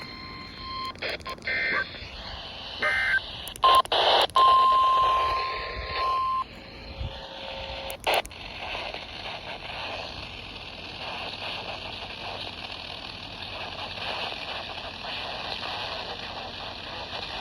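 NOAA Weather Radio broadcast through a receiver: a few short bursts of SAME digital data tones and a steady 1050 Hz warning-alarm tone lasting about two seconds, then a crackle about eight seconds in and steady radio static as the transmitter drops off the air.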